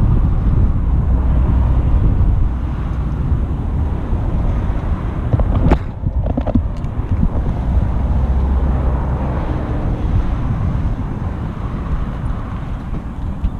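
Steady low rumble of idling motorcycles and passing road traffic. About six seconds in, a sharp knock as a hand touches the camera.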